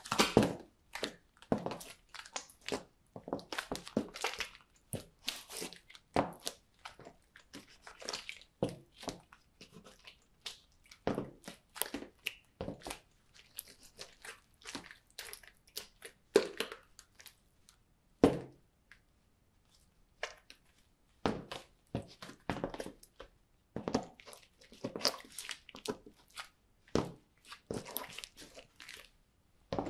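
Slime being squished underfoot by high-heeled platform sandals: many short, irregular wet squelches mixed with taps of the chrome platform soles and stiletto heels on a hard floor, with a brief lull a little past the middle.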